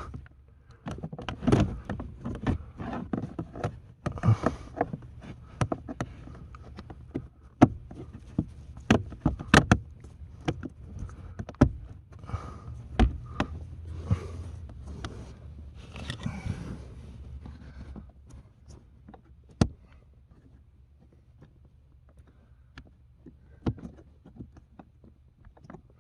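Cabin air filter being pushed and worked into its housing behind the air-conditioning pipes: irregular scrapes, knocks and sharp plastic clicks over a low hum. The filter will not go in. The handling noise thins out to a few isolated clicks after about eighteen seconds.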